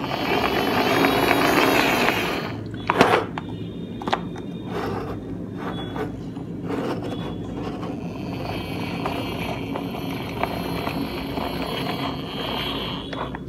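Toy bus rolled along a hard surface, its plastic wheels giving a steady scraping rumble with small clicks from handling. The rumble is loudest in the first couple of seconds, and there is a sharp knock about three seconds in.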